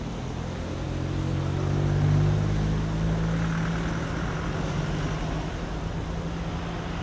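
Engine of a heavy machine working the mud, revving up from about a second in, loudest around two seconds, then running steadily.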